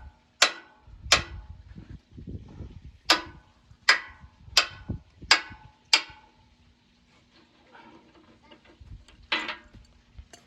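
Hammer blows on metal, sharp ringing strikes about 0.7 s apart: two near the start, a run of five a few seconds in, and a last one near the end. They come while working loose a threaded pipe plug that a welding spot has stuck in place. A faint steady hum runs underneath.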